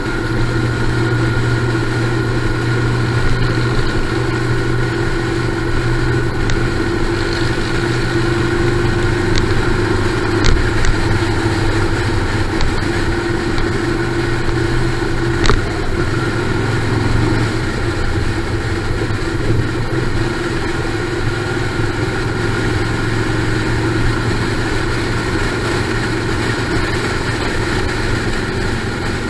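Motorcycle engines running steadily at cruising speed on the road, with wind and road noise, and a few brief clicks about a third and halfway through.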